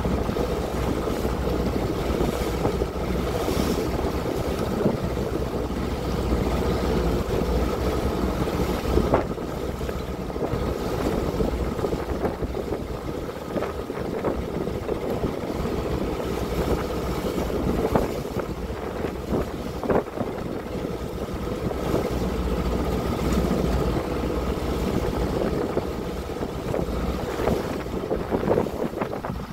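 Pilot boat's engine running steadily under way, with water rushing along the hull and wind buffeting the microphone. A few short, sharp slaps of water against the hull stand out.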